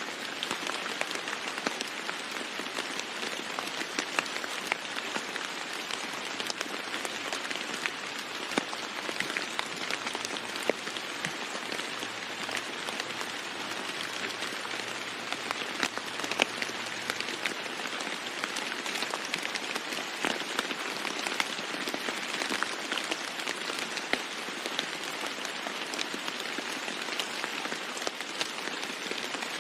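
Steady rain falling on a roof, an even hiss of rain dotted with many sharp ticks of single drops striking.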